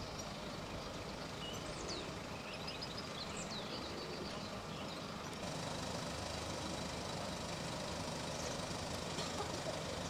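Idling vehicle engine, a steady low rumble, with a few short bird chirps in the first half. The level steps up about five and a half seconds in.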